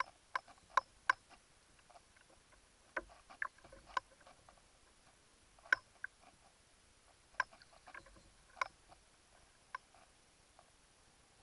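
Light, sharp clicks and taps, about a dozen at uneven intervals, from the kayak and its fishing tackle while a fish is being played on a bent rod.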